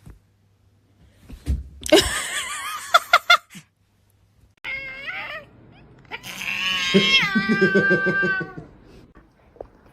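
A cat yowling in three drawn-out calls: the first wavers in pitch, the second is short, and the last is long, dropping in pitch and then holding.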